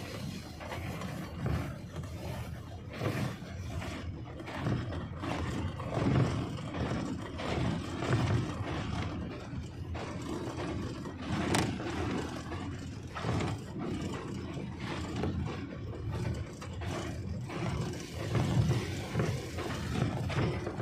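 GE U20C diesel-electric locomotive running along the line, heard from its outside walkway: a steady low engine drone mixed with rail and running-gear clatter, swelling and fading unevenly with wind buffeting the microphone.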